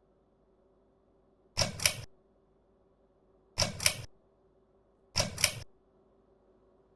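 Three sharp double clicks about two seconds apart, typical of a ceiling fan's pull-chain switch being pulled and let go. Under them runs a faint steady hum.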